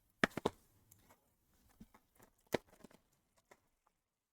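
Trading cards and their holders being handled on a table: two sharp clicks in quick succession just after the start, another about two and a half seconds in, and faint ticks and taps between.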